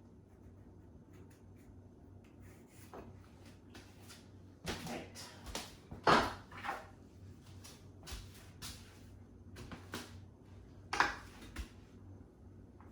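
Scattered knocks and clicks of hard objects being handled, with the two loudest about six seconds in and about eleven seconds in.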